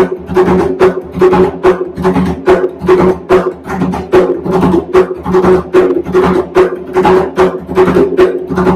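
A bomba barrel drum (barril) played with bare hands in the Seis Corrido rhythm: a steady, repeating pattern of sharp slaps and open tones, about three to four strokes a second, the open tones ringing low.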